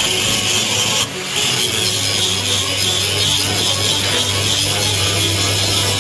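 Electric angle grinder grinding a steel bar: a steady, high hiss of the abrasive disc on metal over the motor's hum, easing off briefly about a second in.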